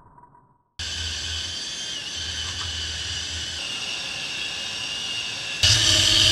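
Cordless angle grinder with a wire brush scouring rust, grease and old paint off a Series 1 Land Rover's steel rear differential housing: a steady high whine with rasping. It starts suddenly about a second in and gets louder about five and a half seconds in.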